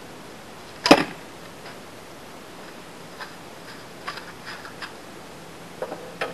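A carbon arrow shot from a 62-pound English longbow hits a block archery target with one sharp, loud strike about a second in. Faint ticks and rustles follow, with a few louder knocks near the end.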